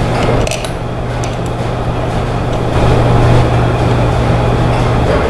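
Steady low hum with a few faint small clicks in the first second and a half, as the screws of a pump's wiring-box cover are tightened with a screwdriver.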